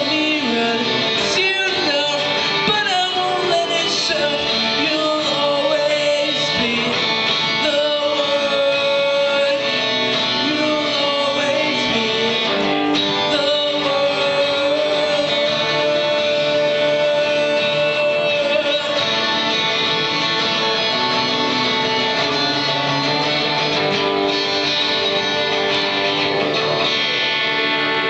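Live acoustic guitar, strummed and picked, with a man singing long held notes over it.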